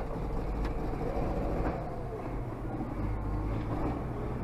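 Tractor diesel engine idling steadily just after being started, a low drone heard from inside the cab.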